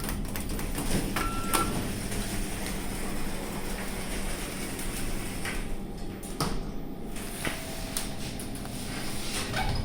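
Passenger lift in use: a steady low hum with scattered clicks and knocks, and a short electronic beep about a second in.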